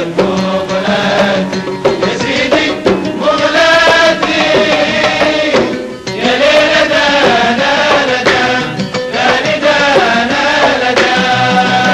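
Gulf Arab folk music: a group of men singing together, with hand claps and drum strokes keeping the beat.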